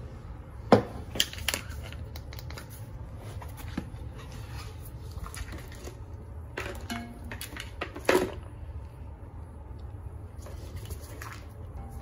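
Handling noise from an old engine wiring harness being moved about on a floor mat: rustling with a few sharp clicks and knocks, the loudest about a second in and again at about eight seconds, over a steady low hum.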